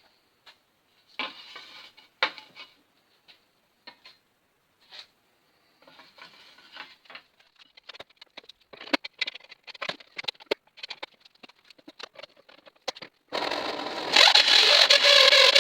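Light taps, knocks and scrapes of a hand-made sheet-steel repair panel being handled and fitted against the car body, then, about 13 seconds in, a loud steady rasping noise starts and keeps going.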